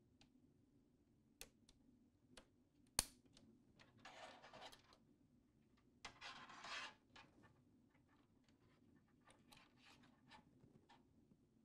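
Faint handling of fiber optic cable assemblies and plastic connectors on a patching tray: scattered light ticks, one sharp click about three seconds in, and two short rustling stretches as jacketed cable is drawn through the hands.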